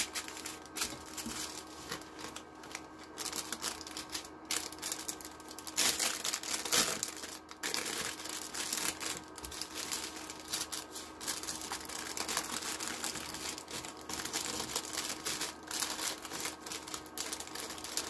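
Plastic packaging crinkling and rustling in irregular crackles as items are handled, busiest about six seconds in.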